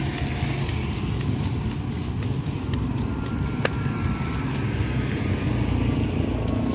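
Steady low rumble of a slow ride along a street, with wind on the microphone. A single sharp click comes about halfway through, and a faint falling whine runs through the second half.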